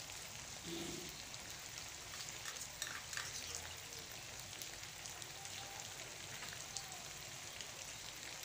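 Sliced potatoes frying in oil in a pan: a steady, faint sizzle with many small crackles.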